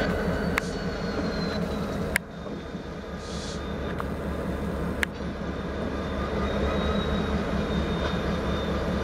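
Diesel locomotive running at low speed, a steady low rumble, with a few sharp clicks: about half a second, two seconds and five seconds in.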